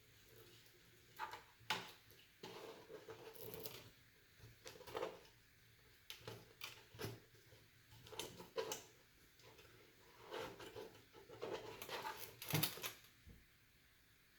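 Irregular clicks, taps and rustling from hands handling parts and cables inside a computer case, with a sharper knock about a second and a half in and another near the end.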